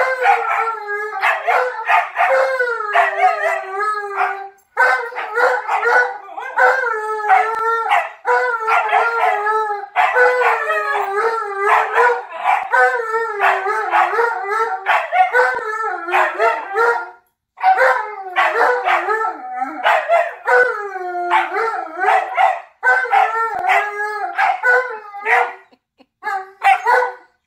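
An Alaskan malamute and a husky puppy howling and woo-ing back and forth at each other, long wavering howls with only brief pauses between them.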